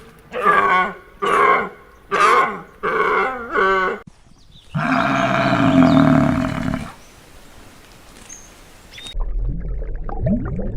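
Animal calls: four short wavering calls about a second apart, then one longer, louder call, and low rumbling near the end.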